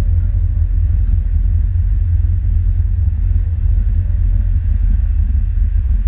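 Dive boat under way at sea: a loud, steady low rumble of the hull and engine, with wind buffeting the microphone.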